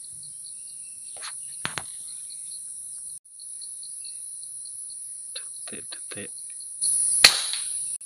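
Steady, shrill drone of tropical insects with a pulsing undertone. Near the end comes a single sharp crack from a shot of a pre-charged pneumatic air rifle.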